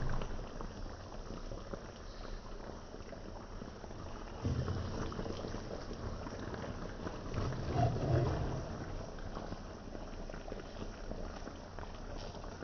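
Beef and broccoli simmering in a sauce in a pan, with a steady crackling bubble. A metal spoon scoops through the sauce, with a couple of low bumps about four and eight seconds in.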